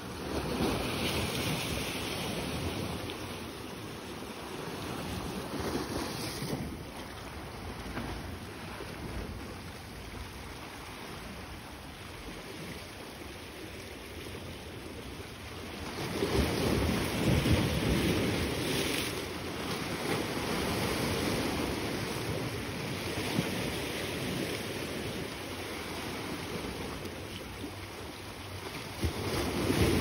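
Sea waves washing against a rocky shore, with wind on the microphone. The wash swells and eases, and a louder surge comes a little past halfway.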